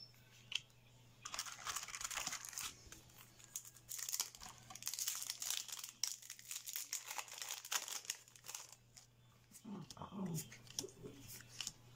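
A Yu-Gi-Oh booster pack's foil wrapper crinkling and tearing as it is opened by hand: a dense rustle full of sharp crackles that dies down about nine seconds in.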